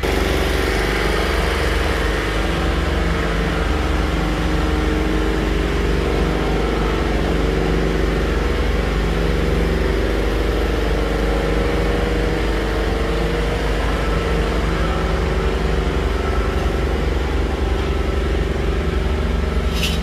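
A steady engine drone with an even low hum and a constant pitch, running without change.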